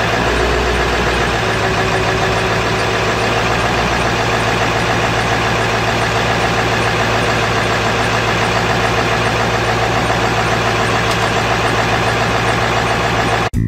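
1997 Ford F-350's 7.3 L Power Stroke V8 turbo diesel idling steadily, running on freshly installed Stage 1 (160/0) injectors. The sound cuts off abruptly near the end.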